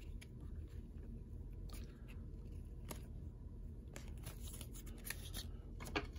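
Baseball trading cards being shuffled and slid against one another in the hands: faint scrapes and soft ticks over a low steady hum, with a few sharper clicks near the end.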